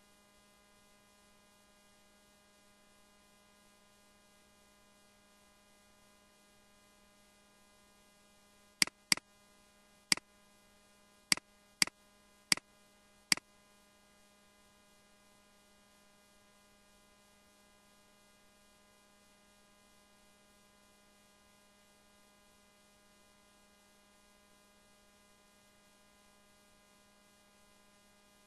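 Faint steady electrical hum with a low tone, broken by seven sharp clicks in quick, uneven succession between about nine and thirteen seconds in.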